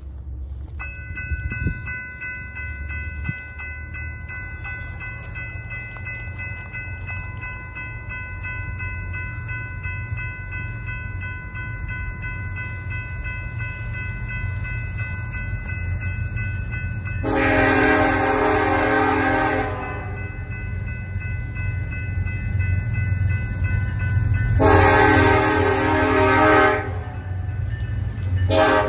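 Approaching BNSF diesel freight train: a low rumble that grows louder, with a faint steady high whine, and the locomotive's air horn sounding two long blasts more than halfway through, then a third blast starting near the end.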